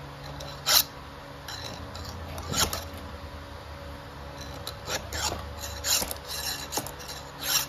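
Round file rasping across chainsaw chain cutters by hand, in separate short strokes at an uneven pace, about eight in all.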